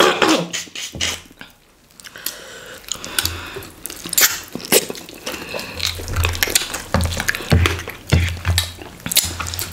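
Close-miked eating of fufu with okra stew and goat meat by hand: wet chewing and lip-smacking mouth sounds with many short sharp clicks, and the squish of slimy okra stew being scooped up with fingers.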